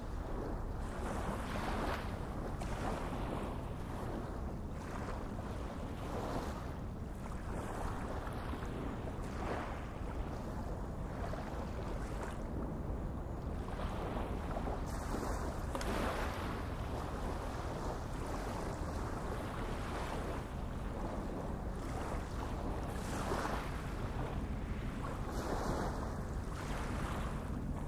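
Steady rushing of wind and water, surging irregularly every second or two, with wind buffeting the microphone.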